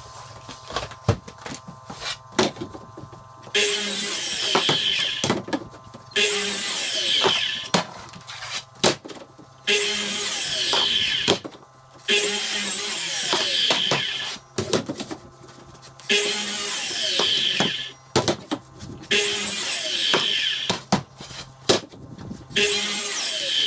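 Electric miter saw crosscutting red oak flooring boards, about seven short cuts a few seconds apart. Each cut has the motor spinning up and the blade going through the wood. Between cuts there are knocks from boards being moved on the bench.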